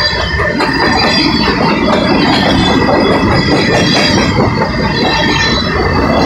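Covered hopper cars of a freight train rolling past close by: a loud, steady rumble of steel wheels on rail, with thin, steady, high-pitched wheel squeal over it.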